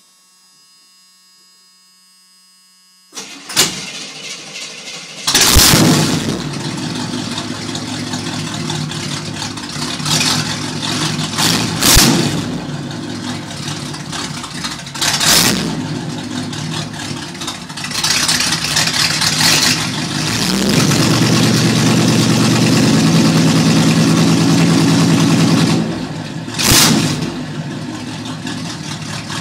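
A 1975 Corvette C3's carbureted V8 cranked by the starter for about two seconds and catching with a loud burst about five seconds in. It then idles with a lumpy 'blub blub' burble and is blipped several times, held at higher revs for about five seconds near the end before dropping back to idle.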